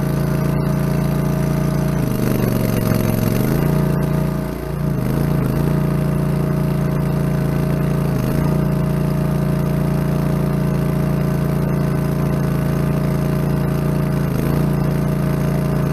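Walk-behind chain trencher's gasoline engine running steadily at high speed while digging. Its pitch sags for a second or so about two seconds in, and dips briefly again several times as the engine is loaded.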